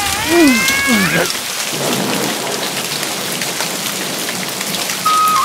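Heavy rain falling steadily, with thunder rumbling. A crying, wail-like sound fades out within the first second, and a steady flute-like tone begins near the end.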